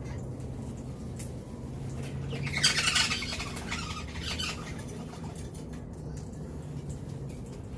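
Wild Australian king parrots squawking: one loud, harsh squawk burst about two and a half seconds in, lasting about a second and trailing off, over a steady low hum.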